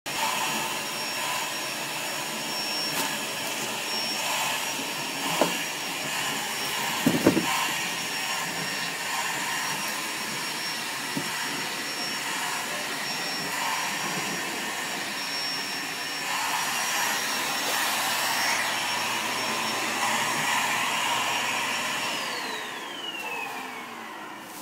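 Vacuum cleaner running steadily with a high motor whine, bumped by a couple of knocks near the start. About 22 seconds in it is switched off, and the whine falls in pitch as the motor spins down.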